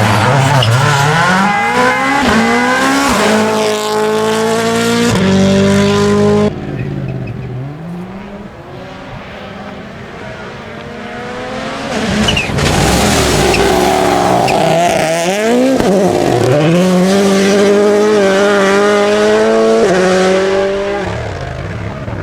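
Rally car engines accelerating hard, the pitch climbing and dropping back at each gear change. The first run cuts off abruptly about six and a half seconds in. After a quieter stretch, a second run builds from about twelve seconds in, climbs through several gears and fades near the end.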